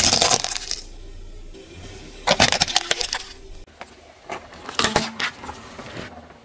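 Car tyre rolling over and crushing small plastic toys and candy on asphalt: three bursts of crunching and cracking plastic, at the start, about two and a half seconds in, and around five seconds in.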